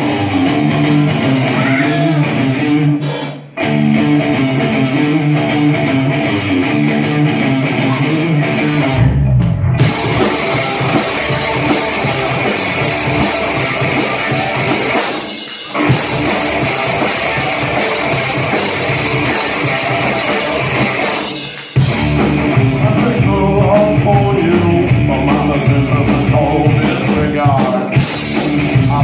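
Live rock band playing loud, with electric guitars, bass and drum kit. The band breaks off for a split second three times: about three seconds in, around fifteen seconds and around twenty-two seconds.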